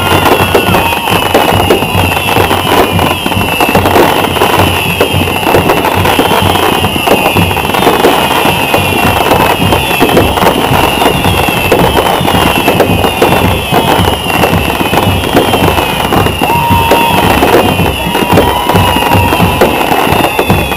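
Fireworks finale: a dense, unbroken barrage of bangs and crackling, with high whistles falling in pitch over and over.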